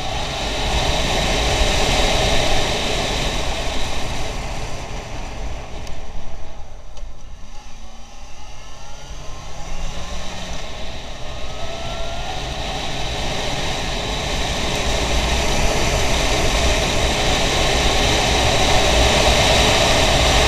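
Motorcycle engine running and wind rushing over the microphone while riding at speed. Both ease off a few seconds in, with the engine pitch gliding, then build up steadily again.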